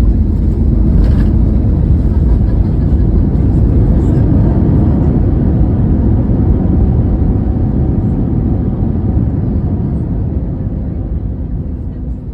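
Loud, steady rumble inside the cabin of an Airbus A320neo around landing, engine and runway noise together, easing off gradually over the last few seconds as the aircraft slows.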